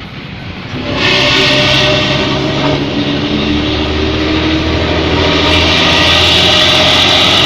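Old bus's diesel engine and exhaust running loudly with a characteristic snoring rumble ('ngorok'), jumping to much louder about a second in.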